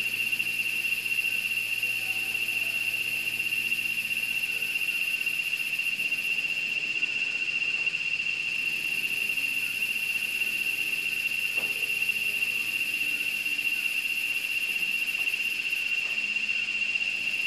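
Steady shrill chorus of insects: one constant high-pitched tone throughout, with a higher hissing layer that drops out for about two seconds around the middle and then returns.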